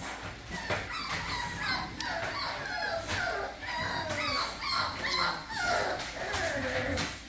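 American Bully puppy whining and yipping: a steady string of short, high-pitched cries, many sliding down in pitch.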